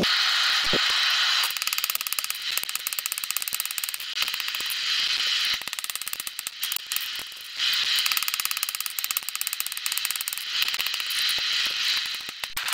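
Hammer blows on hot steel at the anvil while forging nails, a rapid dense metallic clatter with a few short lulls.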